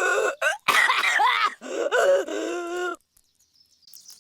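A cartoon cough sound effect altered with audio effects, stretched into three pitched, wavering vocal sounds, the last one held at a steady pitch. It cuts off about three seconds in.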